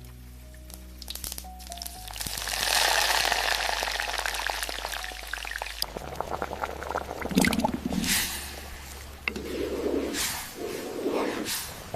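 Liquid being poured, a loud rushing pour from about two seconds in, followed by several shorter splashes and pours, over soft sustained background music.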